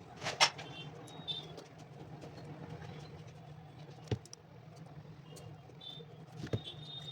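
Three sharp knocks from shoe-repair work, over a steady low hum, with faint short high chirps in between.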